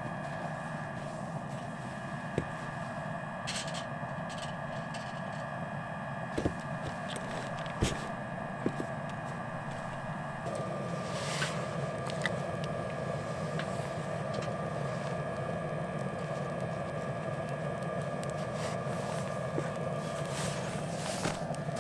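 Scattered sharp pops and crackles of a small wood fire, over a steady mechanical hum that changes tone slightly about halfway through.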